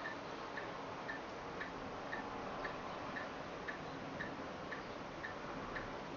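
Regular ticking, about two ticks a second, over a steady hiss from the vintage Arena FD F700 AC radio's speaker before a station comes through.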